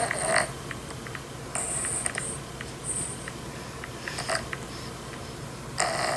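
Snoring. One loud snore trails off just after the start. Quieter breathy noises and small clicks follow, and another loud snore starts near the end.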